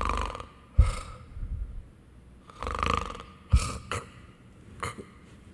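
A man doing a playacted snore twice, about three seconds apart, each rasping snore followed by a short sharp puff of breath.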